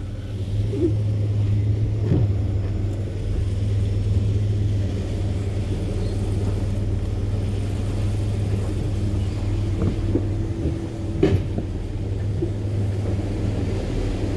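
Pickup truck's engine idling as it creeps forward at low speed, heard from inside the cab: a steady low hum, with a light knock about two seconds in and another near the end.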